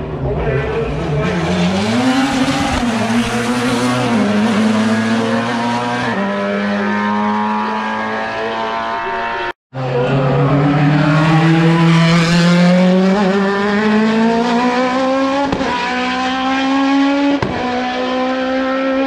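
Racing car engine accelerating hard up through the gears, its pitch climbing and dropping back at each upshift. The sound cuts out for an instant about halfway through.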